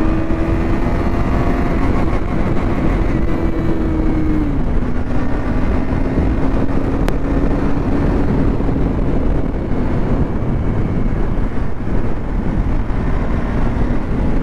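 KTM Duke 250's single-cylinder engine accelerating hard in third gear, its pitch rising for the first few seconds. The pitch drops abruptly about four and a half seconds in, then holds steady, sagging slightly toward the end.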